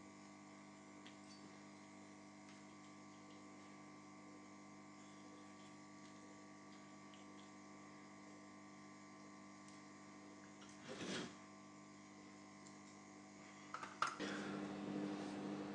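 Faint, steady electrical hum. A short rustle comes about eleven seconds in, then a few clicks and louder handling noise near the end.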